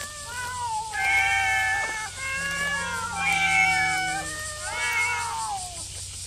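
Several cats meowing at once, with long overlapping meows that slide up and down in pitch: a crowd of hungry cats calling for food.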